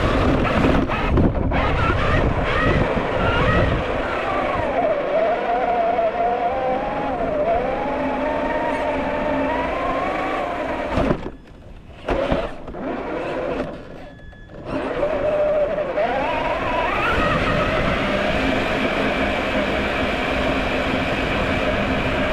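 Traxxas TRX4 RC crawler's electric motor and gear drivetrain whining. The pitch wavers up and down with the throttle, and it cuts out twice briefly just past halfway.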